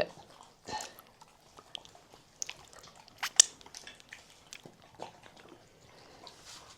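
Dogs eating yogurt pudding and cake from bowls: irregular wet smacks, licks and small clicks, the sharpest click about three and a half seconds in.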